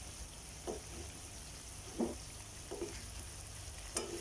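Masala-coated chicken pieces frying in hot oil in a steel pan on full flame: a steady sizzle, with a few short knocks.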